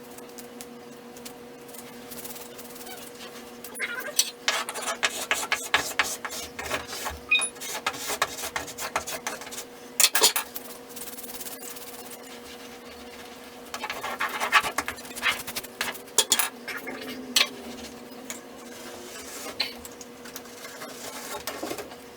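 Scraping and rubbing in two long bouts, with scattered sharp knocks, over a steady electrical hum.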